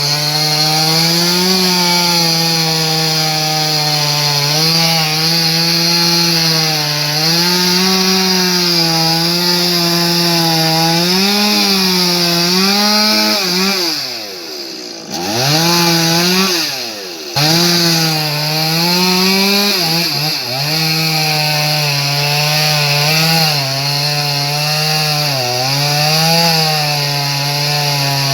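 Two-stroke chainsaw running at high revs while cutting through a large tree, its note wavering as the chain loads up in the wood. About halfway through, the engine pitch drops steeply and the sound dips twice before it revs back up and carries on cutting.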